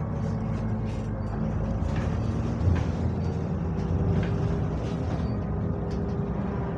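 Double-decker bus engine running as the bus drives, heard from inside the passenger deck: a steady rumble with faint steady whines over it, and light rattles from the body. The title puts the bus's sound down to a turbo leak and its cooling fan.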